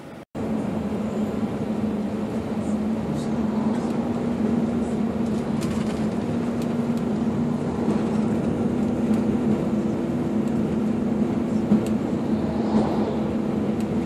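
Bus engine and road noise heard from inside a moving bus: a steady drone with a constant low hum over a rushing sound, starting abruptly after a brief dropout.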